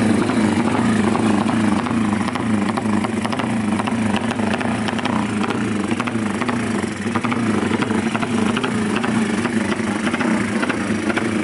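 Drag-racing motorcycle's two-stroke engine running and revving steadily, a loud buzz with a rapid crackle.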